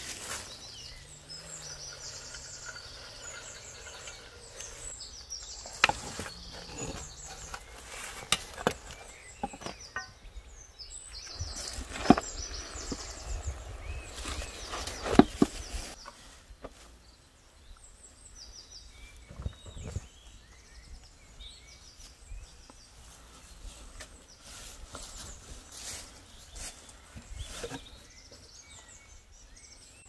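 Small birds chirping over and over, with a few sharp knocks or clinks, the loudest about halfway through.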